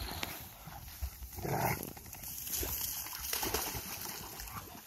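A dog moving about on the pine-needle ground by the water, with a short noisy burst about a second and a half in and scattered small knocks and scuffs.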